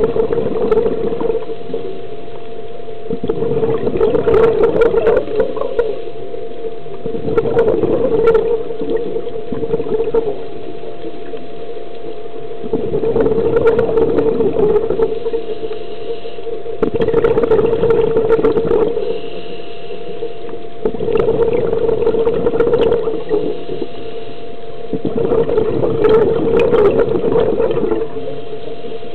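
Scuba diver breathing through a regulator underwater: loud surges of exhaled bubbles lasting two to three seconds, about every four to five seconds, over a steady low hum.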